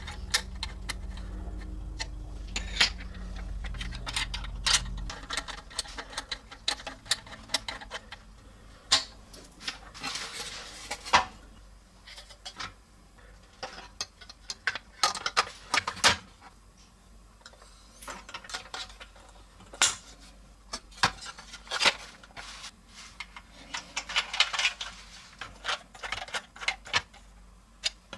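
Hard plastic toy-kit parts being handled and pressed together: irregular clicks, taps and light clatters, with plastic rubbing on plastic twice, once about ten seconds in and once near the end. A low rumble runs underneath for the first five seconds, then stops.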